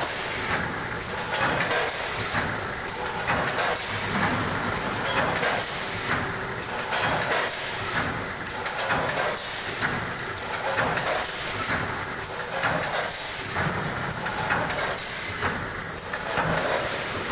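Automatic sugar packing machine with a weigher, running through its packing cycles: continuous mechanical clatter and hiss that swells in a loose repeating pattern every couple of seconds.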